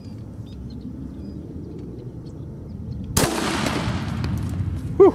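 Shotgun firing a heavy hand-loaded slug through a rifled choke: a single sharp report about three seconds in that echoes and fades over about two seconds. A short, loud, pitched sound follows just before the end.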